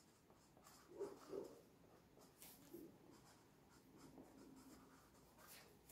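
Felt-tip marker writing on a cardboard box: faint, short scratching strokes.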